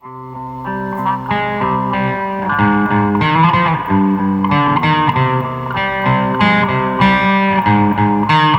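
Intro music led by electric guitar, fading in at the start and playing a quick run of notes.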